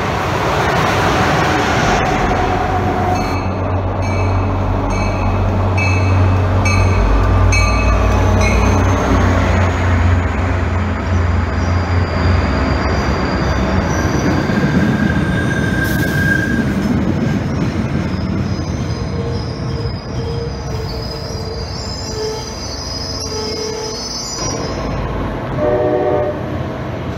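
Passenger trains in a station: an Amtrak Acela passing at speed, then an MBTA commuter rail train with its diesel locomotive running. A bell rings in a steady rhythm for several seconds, and later the wheels squeal on the rails.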